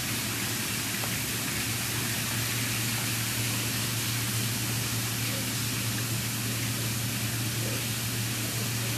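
Steady, unchanging hiss with a low hum underneath and no distinct events.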